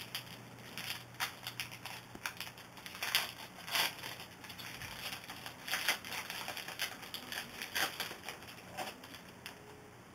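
Trading cards being handled and flipped through from an opened pack: an irregular run of short rustling clicks and slides, thinning out near the end.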